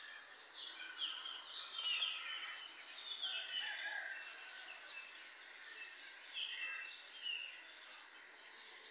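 Birds chirping: a run of short, quick calls, busiest in the first four seconds and sparser after, over a faint steady hiss.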